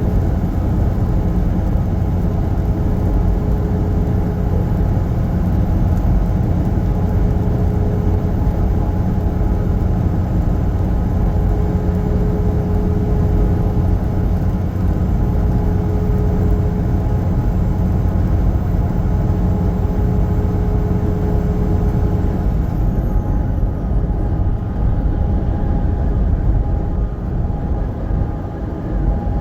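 Semi-truck driving steadily on the highway: continuous engine and road noise, heaviest in the low end. The higher hiss drops away about three-quarters of the way through.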